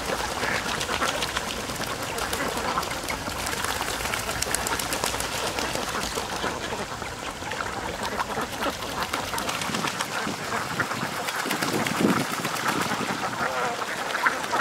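A large flock of domestic ducks quacking together and splashing as they dabble through shallow muddy water, with one louder call about twelve seconds in.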